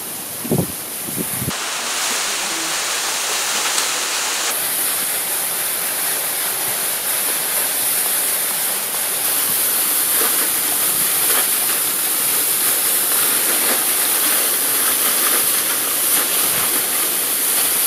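Steady rushing of a waterfall, with a couple of short knocks about half a second in.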